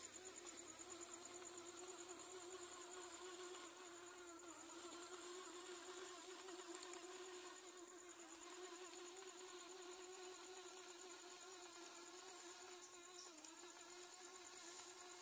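Faint, steady buzz of the small electric gear motors of a remote-controlled helmet vehicle driving, with a high, fast-pulsing trill above it.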